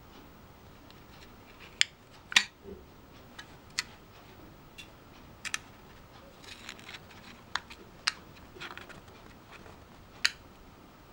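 Metal scoop clicking against the inside of a milk powder tin and scraping through the powder: irregular sharp clicks a second or more apart, with soft scraping between them.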